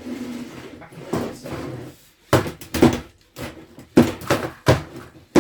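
Lego combat robots clashing: a series of sharp plastic clacks and knocks, coming thick and fast in the second half after a lower clatter at first.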